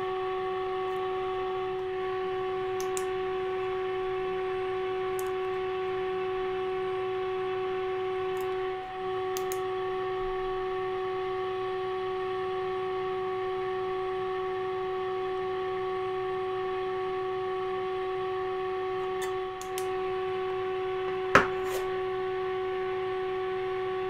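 Steady test tone from the NordMende Elektra 58 valve radio's loudspeaker, the volume at maximum, as a 460 kHz modulated signal from a signal generator is fed through its IF stages during alignment. The tone holds at its peak because the IF transformers are already trimmed to maximum. It dips briefly twice, and a single sharp click sounds near the end.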